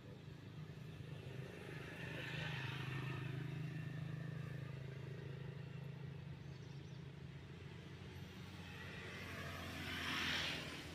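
A motor vehicle's engine running with a steady low hum, swelling louder near the end as it passes.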